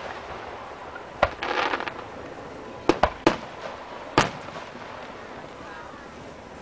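Aerial firework shells bursting in sharp booms: one about a second in, three close together around three seconds, and one about four seconds in.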